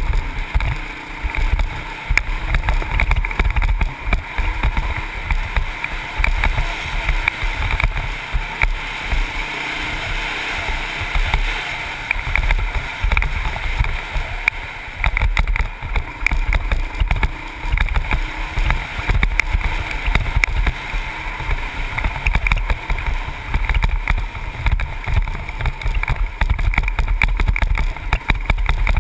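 Honda CRF450X four-stroke single-cylinder dirt bike engine running at speed, heard through a helmet-mounted camera. Heavy wind buffeting on the microphone and knocks from the rough trail partly bury the engine.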